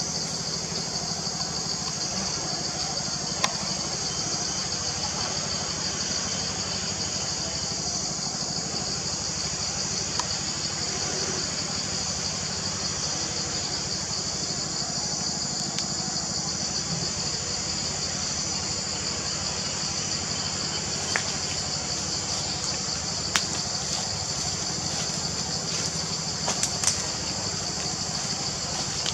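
Steady high-pitched chorus of forest insects, unbroken throughout, over a low steady hum, with a few sharp isolated clicks.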